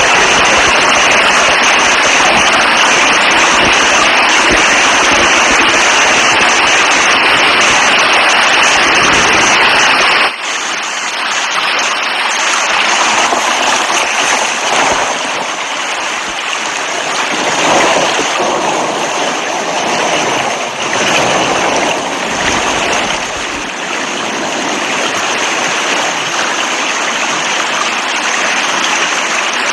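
Rain falling hard, a dense, even hiss. About ten seconds in it cuts abruptly to a softer, uneven rush of running water that swells and ebbs.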